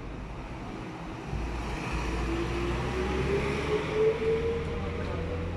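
A motor vehicle accelerating: a low engine rumble builds after about a second, with a whine that climbs steadily in pitch over the next few seconds.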